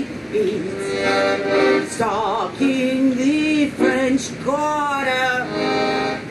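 Song with a voice singing long, sliding notes, one wavering with vibrato about two seconds in, over piano accordion accompaniment.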